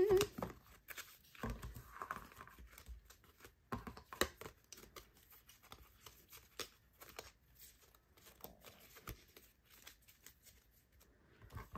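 A stack of photocards being flipped and shuffled through by hand: irregular soft clicks and rustles as the cards knock and slide against each other.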